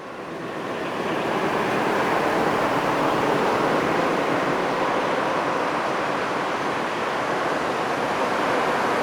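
Roadside traffic noise: a steady rush of tyres and engines from passing vehicles, fading in over the first second or so and then holding level.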